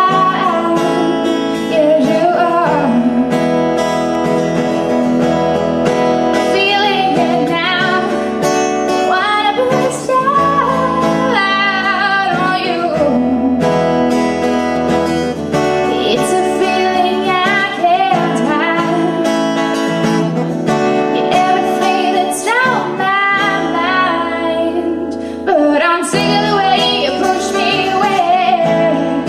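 A woman singing a slow song live, accompanying herself on an acoustic guitar, with her voice gliding between long held notes.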